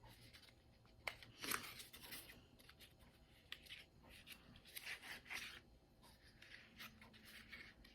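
Faint rustling and scraping of a small product box being opened and handled, in irregular short strokes, with a light click about a second in.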